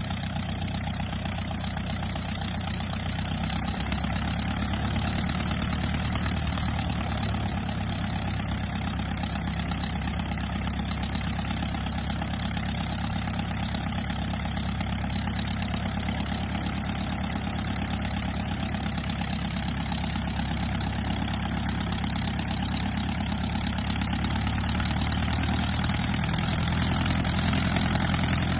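Rebuilt Lycoming O-235 four-cylinder, air-cooled, horizontally opposed aircraft engine running steadily on a test stand with its propeller turning during a run-up, getting a little louder near the end.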